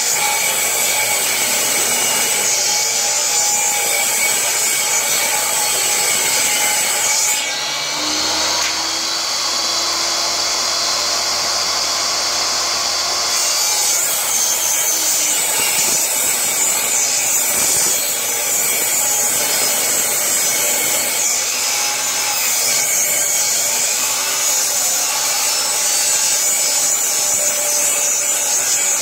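Benchtop table saw ripping a long strip of pressure-treated wood, the blade cutting without a break. For several seconds about a third of the way in the sound turns smoother and steadier.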